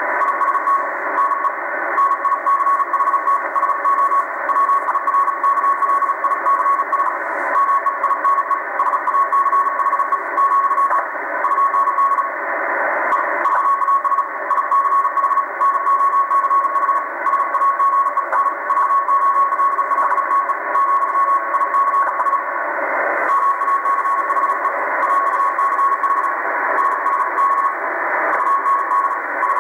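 Morse code on the 80-metre amateur band, received on a Tecsun PL880 shortwave radio in LSB mode: a strong keyed tone of about 1 kHz sending fast dots and dashes over steady band hiss.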